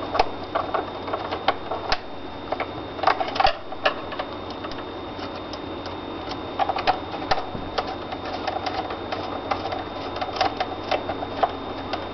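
Two small screws being screwed back into the back plate of a P90 airsoft gun by hand: bunches of light mechanical clicks and ticks, coming in several separate runs.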